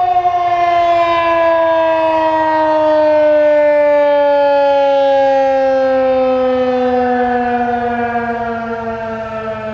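Federal Signal 2001-SRNB electromechanical tornado siren sounding a loud single tone whose pitch falls steadily throughout. The siren is winding down as its rotor slows after the alert cycle, fading somewhat near the end.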